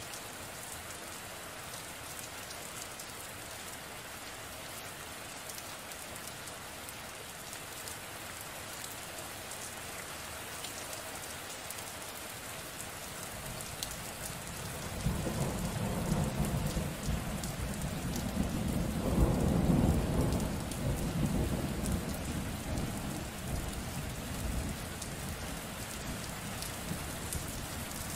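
Steady rain falling, with a long roll of thunder that starts about halfway through, swells to its loudest a few seconds later and rumbles away.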